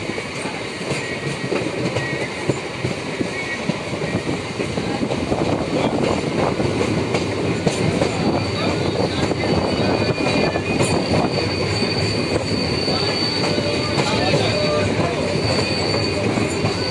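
MEMU electric multiple-unit passenger train running at speed, wheels clattering over the rails in a dense, rapid clickety-clack. A steady high wheel squeal sets in about ten seconds in, and the running grows a little louder after about five seconds.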